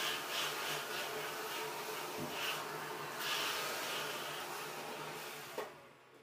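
An electric household appliance motor running with a steady hum and hiss, then switching off with a click near the end.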